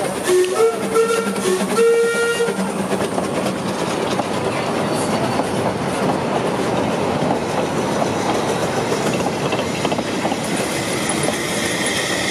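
Steam whistle sounding two short blasts, then a narrow-gauge steam train's coaches rolling past, wheels rumbling and clattering steadily over the rails.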